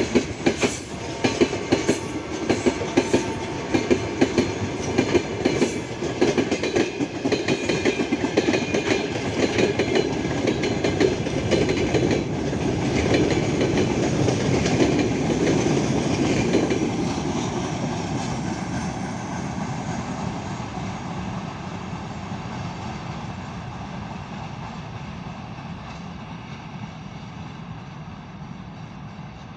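Wagons of a long broad-gauge freight train rolling past, wheels clacking rapidly over rail joints above a steady rumble. Just past halfway the clacking gives way to a rumble that fades steadily as the train moves off.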